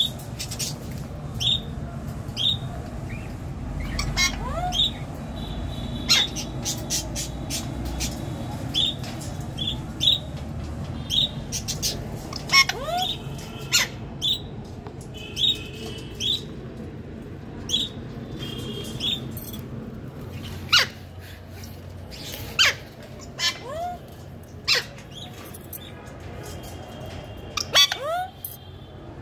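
Pet parrot chirping and squawking: a long string of short, sharp chirps and clicks, one or two a second, with a few louder calls mixed in.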